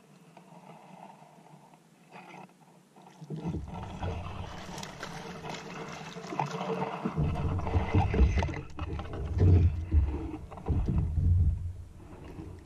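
A hooked largemouth bass splashing and thrashing at the surface as it is played in beside a plastic fishing kayak, starting about three seconds in, then several heavy low knocks as the fish is brought aboard and handled against the hull.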